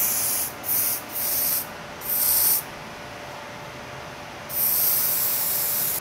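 Aerosol hair-styling spray hissing from a can onto a wig's hair in five bursts: four short sprays, then a longer one of about a second and a half near the end.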